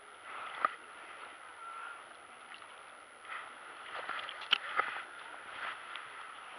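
Lake water splashing and sloshing as a landing net is dipped and shaken in the shallows to release a trout, the splashing heaviest in the second half. A few sharp clicks, the loudest about four and a half seconds in.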